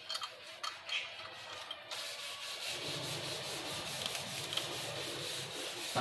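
A few light handling clicks, then from about two seconds in a steady rubbing, scraping noise with a fast, even rhythm.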